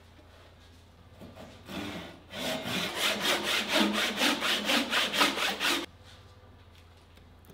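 Hand saw cutting through a thick wooden seat blank: a few light starting strokes, then about three seconds of fast, even strokes, about four a second, that stop abruptly.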